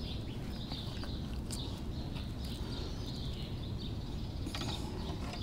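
Steady low outdoor background noise with faint, wavering bird chirps, and a few faint clicks of fishing pliers working a deep-set hook out of a bass's mouth.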